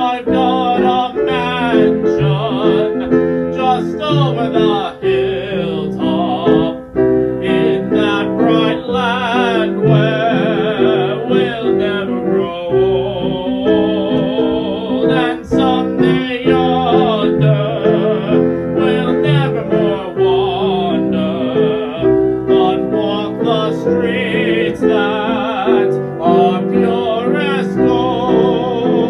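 A song with a singer holding notes with wide vibrato over piano accompaniment.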